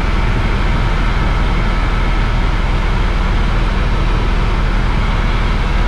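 Tour helicopter in flight, heard from inside the cabin: a loud, steady drone of rotor and turbine engine with a faint steady whine above it.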